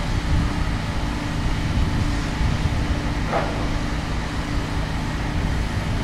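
Steady low rumble of street traffic, with a faint steady hum that stops a little past halfway, where a brief high sound falls away.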